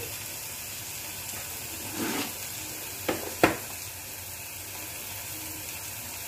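Yellow plastic spice box being handled and opened on the counter: a short rattle about two seconds in, then two sharp plastic clicks, over a steady hiss.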